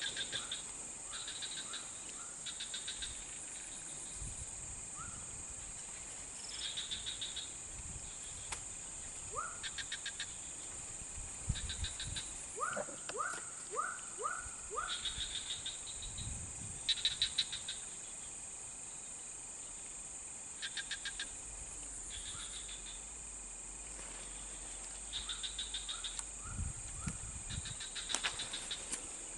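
Swamp insects: a steady high-pitched drone, with short bursts of fast pulsed chirping every second or two. About halfway through comes a run of about six short rising calls.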